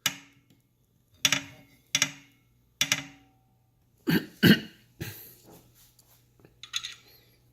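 A series of sharp clicks and knocks, about seven in the first five seconds, then fainter ticking, as metal parts of a Wahoo Kickr trainer's flywheel assembly are handled; each knock rings briefly.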